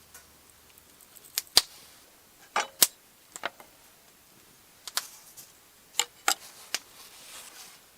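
Wood campfire crackling: about a dozen sharp, irregular pops and snaps.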